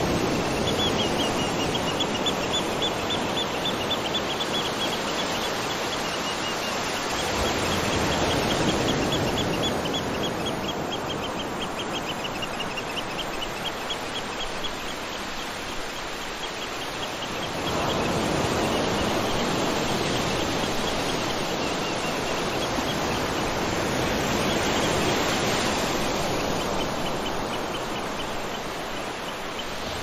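Steady rush of flowing water, with a rapid, high-pitched chirping trill over it for much of the time. The water sound changes in tone abruptly a little past halfway.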